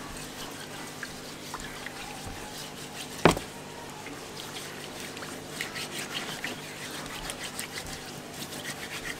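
Hands rubbing wet soil over a common snapping turtle's shell in a tub of muddy water: faint sloshing and scratchy rubbing over a low steady hum, with one sharp knock about three seconds in.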